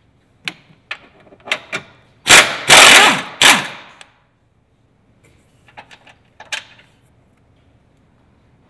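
Hand work on parts and tools in a car's engine bay: a run of sharp clicks, then a loud noisy burst lasting about a second and a half, then a few lighter clicks.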